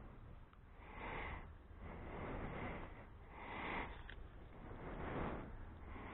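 A person breathing in and out through the nose, a soft swell about every second and a half, over a low steady rumble.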